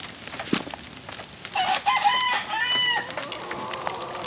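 A rooster crows once, a broken call about a second and a half long that starts about one and a half seconds in, over a light patter of rain drips.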